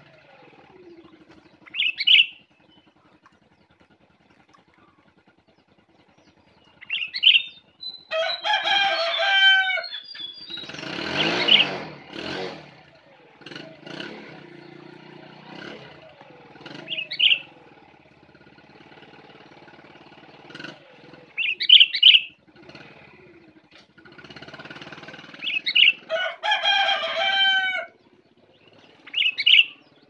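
Caged songbird calling: short high chirps now and then, and twice a longer phrase of quick repeated hooked notes. A louder rushing noise passes about eleven seconds in.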